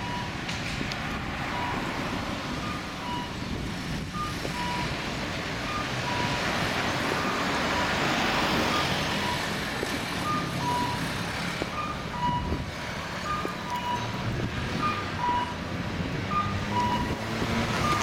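Japanese level-crossing warning alarm ringing, a repeating electronic ding that alternates between two close pitches, over passing road traffic.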